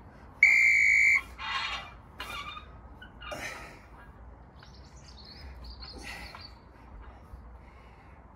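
Interval-timer buzzer sounding one long electronic beep of just under a second, marking the start of a 30-second work interval. Faint bird chirps follow.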